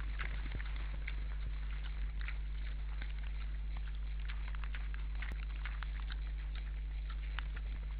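Wild boars crunching and rooting as they feed in snow, heard as many small, irregular clicks and crackles over a steady low electrical hum.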